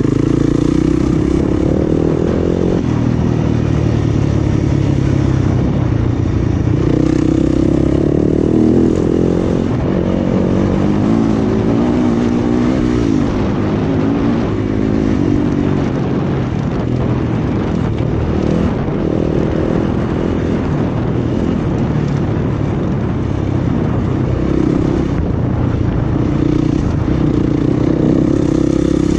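250 cc single-cylinder dirt bike engine running hard, its pitch rising and falling again and again as the throttle opens and closes.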